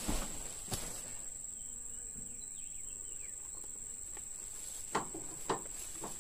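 Insects droning steadily in one high pitch, with four short knocks as bagged oil palm seedlings are handled at the back of a pickup truck: one at the start, one under a second in, and two close together about five seconds in.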